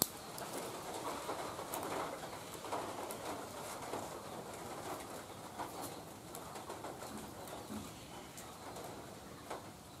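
Doves cooing, with faint clicks and rustles of thin bamboo splints being handled and tied.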